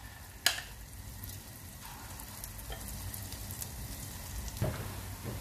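Small moong dal bhajiyas frying in hot oil in a steel kadai: a steady sizzle, with one sharp tap about half a second in.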